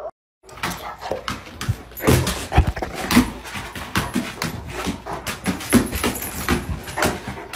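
A large fluffy dog whining and grumbling in short, broken sounds, with frequent clicks running through it.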